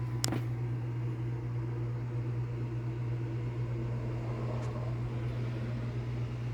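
Steady low mechanical hum, with one sharp click about a quarter second in and a faint tick near the end.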